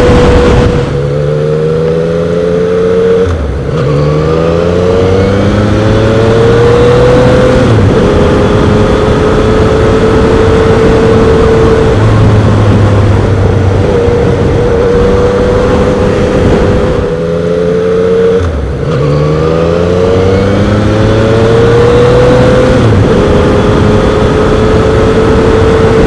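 Yamaha FZ-09's 847 cc inline-three engine under way, pulling up through the gears twice: the pitch climbs in each gear and drops at each upshift, then holds steady at cruise. Wind rushes over the microphone throughout.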